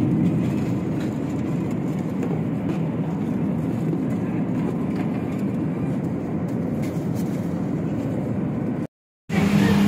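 Steady cabin noise of a Boeing 737 MAX 8 in flight, a low even rush and hum of airflow and engines. It cuts off abruptly near the end, and a different steady hum with a low tone starts.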